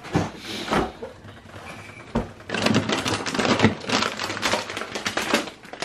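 Crinkling and crackling of a plastic bag of frozen pastries being pulled out and handled, with a single knock about two seconds in.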